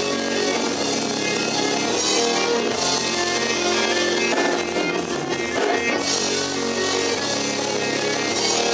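Metal band playing live: electric guitars and a drum kit.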